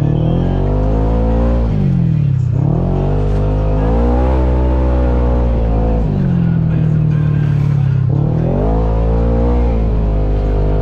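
Kawasaki Teryx KRX 1000 side-by-side's parallel-twin engine revving up and down under throttle. Its pitch climbs and falls several times as the driver accelerates and backs off.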